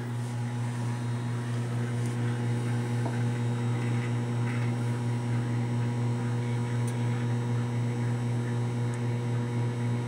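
Microwave oven running, heating a mug of coffee: a steady electrical hum that holds the same note throughout.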